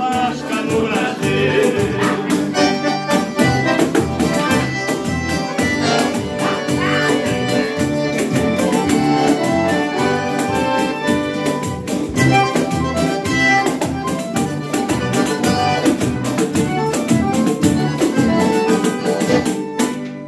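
Live instrumental music led by accordions, with a steady beat, played with a viola caipira and a shaken tambourine.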